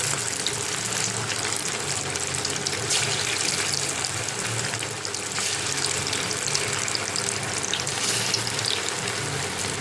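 Marinated bone-in chicken pieces deep-frying in hot oil: a steady sizzle with scattered small crackles.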